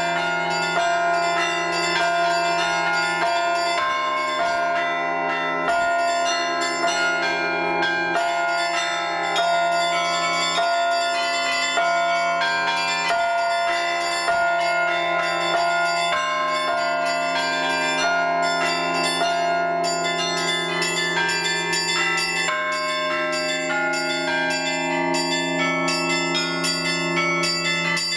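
Russian church bells rung by a bell ringer in the Russian zvon style: a continuous peal of many bells of different pitches, small bells struck in quick succession over deeper bells that ring on.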